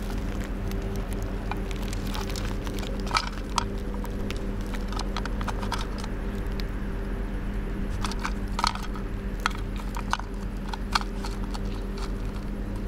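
Scattered clicks, taps and light rattles of a young red fox rummaging through rubbish, stones and plastic and picking up a tin can in its mouth. The sharpest knocks come about three seconds in and again around eight to eleven seconds, over a steady low hum.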